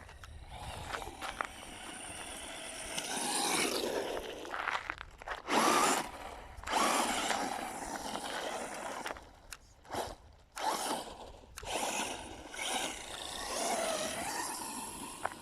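Quanum Vandal RC buggy's electric motor whining in bursts as it is throttled on and off, its pitch rising and falling, with brief drops when it lets off.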